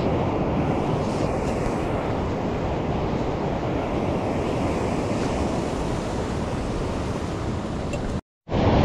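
Rough sea surf breaking and washing against a rock breakwater, a steady rushing with wind buffeting the microphone. The sound drops out for a moment near the end.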